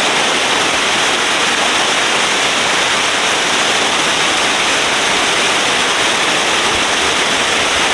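A river rushing steadily, a loud, even wash of running water.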